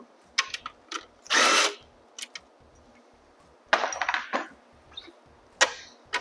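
Two short bursts of a cordless power tool undoing the rear shock's mounting bolt, the first about half a second long and the second longer and uneven about four seconds in, with sharp metal clicks and clinks of tool handling between them.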